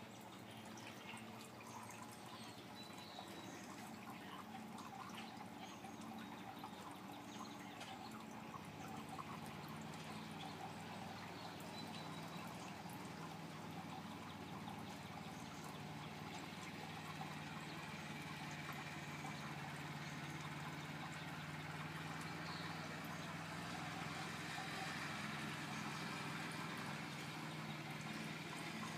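Steady trickle of water running into an above-ground swimming pool, growing slowly louder, with a steady low hum underneath and a few faint bird chirps.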